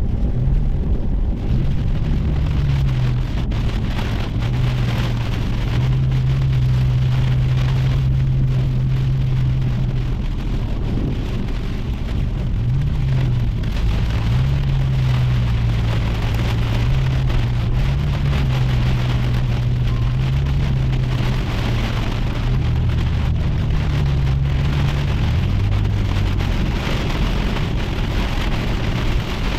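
Rain falling steadily, with a low hum underneath that wanders up and down in pitch.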